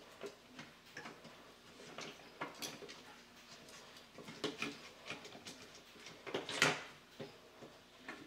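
Irregular light clicks and knocks of hard plastic parts being handled, as the opened shell of a toy robot is turned over in the hands, with one louder knock about six and a half seconds in.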